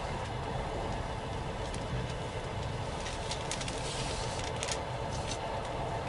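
Passenger railway carriage running along the line, heard from inside: a steady rumble of wheels on rails with a faint steady whine, and a cluster of sharp clicks and rattles about three to five seconds in.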